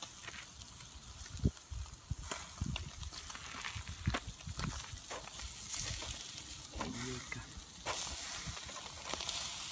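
Marinated pork sizzling on a wire mesh grill over charcoal: a steady fat-and-juice hiss with scattered small crackles and pops.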